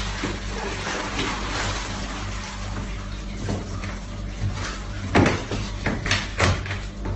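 Water sloshing and running off in a plastic tub as a large turtle is hauled up out of it, with a steady low hum underneath. A few sharp splashes or knocks come between about five and six and a half seconds in.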